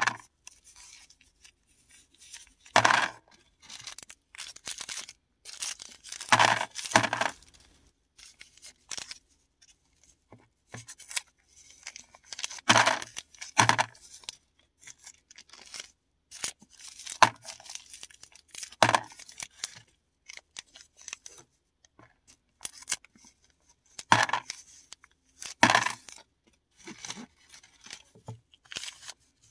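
Paradichlorobenzene mothball tablets and their packaging handled and crushed by hand: irregular bursts of crisp crunching and crackling, several loud ones among softer crackles.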